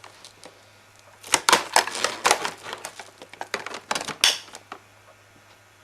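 Hard plastic clicking and rattling of a vacuum cleaner's hose and attachment clips being handled: a quick run of clatters from about a second in, ending with a sharper click near four seconds.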